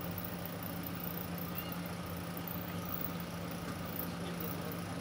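Fingers mixing soft, sticky maida-flour slime dough in a small jar, faint soft sounds over a steady low background hum, with a brief faint squeak about one and a half seconds in.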